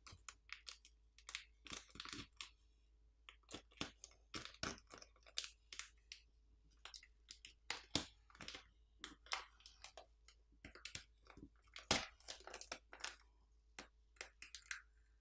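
Clear plastic battery pull pouch being peeled off its adhesive inside a Google Pixel 10's frame and crumpled between fingers: faint, irregular crackling and crinkling.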